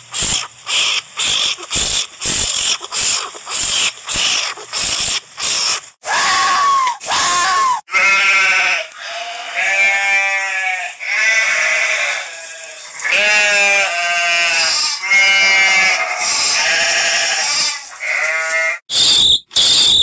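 Short noisy pulses, about three a second, then from about six seconds in a bighorn sheep bleating again and again in long, quavering calls.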